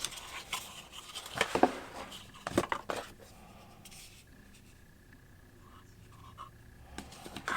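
Packaging and parts being handled while a gimbal's box is unpacked: several sharp clicks and scrapes in the first three seconds, a quieter stretch of faint handling, then a few more clicks near the end.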